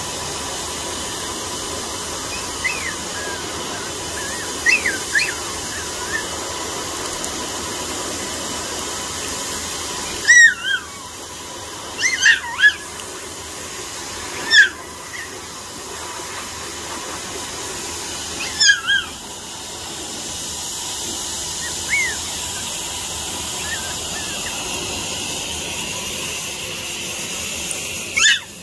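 Pomeranian puppy giving short, high-pitched yips and whimpers every few seconds, the loudest about ten seconds in, over a steady hiss.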